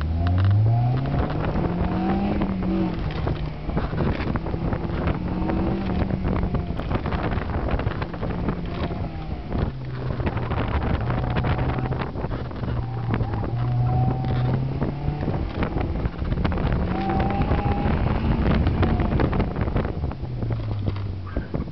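2002 Honda S2000's 2.0-litre four-cylinder engine heard from inside the car, climbing hard in pitch off the launch and then rising and falling as the car is driven at the limit through an autocross course, with wind noise on the microphone throughout.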